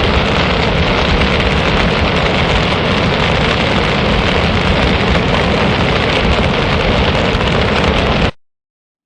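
Heavy rain falling in a steady, dense downpour that cuts off abruptly about eight seconds in.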